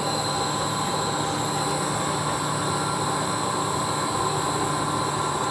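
Overhead crane's electric hoist motor and gearbox running steadily: a continuous mechanical hum with a high whine over it.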